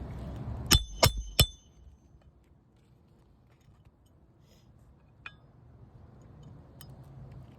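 Three quick hammer blows on metal, each with a short ringing clink, driving a roofing nail into an asphalt shingle. A single fainter tap follows a few seconds later.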